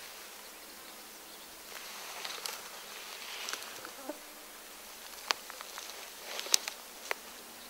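Soft rustling followed by a few sharp clicks, the loudest a little after the middle, as a seated bowhunter shifts and handles his compound bow and gear.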